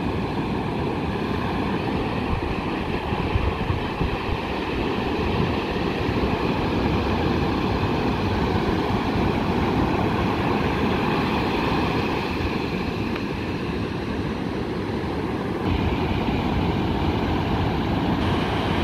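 Ocean surf breaking and washing in a continuous steady rush, with wind rumbling on the microphone.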